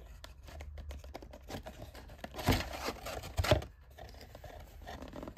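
Cardboard packaging being handled and opened by hand: scraping, tapping and rustling of a cardboard craft-kit box in its shipping carton, with two louder scrapes about a second apart midway.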